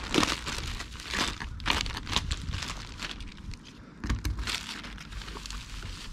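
Clear plastic bags and plastic wrap crinkling and rustling in irregular bursts as hands unwrap new tie rod ends.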